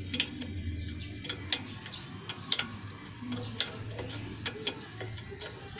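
Open-end wrench clicking on a steel brake-line flare nut in short, irregularly spaced metal ticks as the nut is turned in small bites, snugging the brake tube into a rear drum-brake wheel cylinder. A steady low hum runs underneath.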